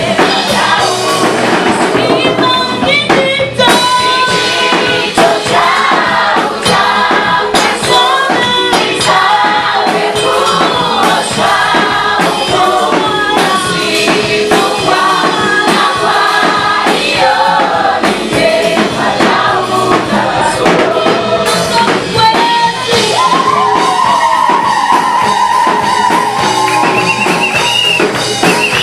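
A choir singing gospel music with band accompaniment and tambourine.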